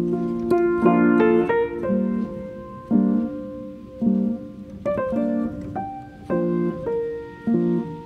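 Instrumental background music led by piano, with chords struck about once a second under a higher melody.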